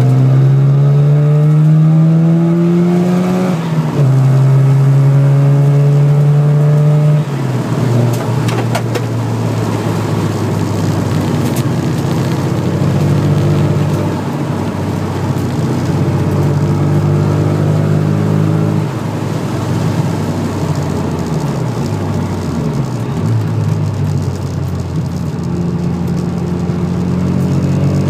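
Car engine heard from inside the cabin under hard track driving. It revs up through a gear, changes gear about four seconds in and holds high revs. About seven seconds in it lifts off, then runs at lower, varying revs through the corners and builds again near the end.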